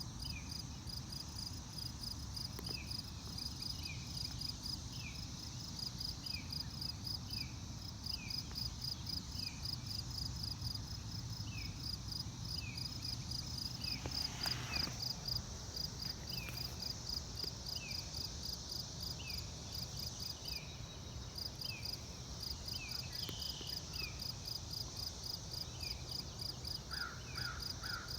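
Field ambience of insects chirping: a high, rapid, evenly pulsed trill, with a second short falling chirp repeating about once a second, over a steady low rumble. A brief noise rises and fades about halfway through.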